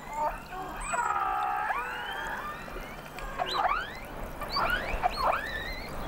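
Killer whales calling underwater: a longer wavering call about a second in, then a run of short calls that sweep sharply up and down in pitch, several overlapping.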